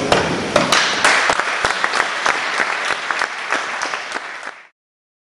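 Audience applause breaking out as the choir's final chord fades, a dense crackle of many hands clapping. It stops abruptly near the end.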